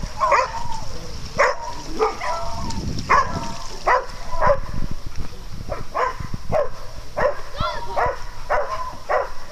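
Dog barking over and over in play, short barks coming about every half second, with a higher rising-and-falling yip near the end.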